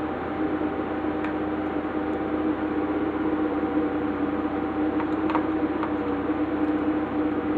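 A steady machine hum with a few faint, light clicks scattered through it.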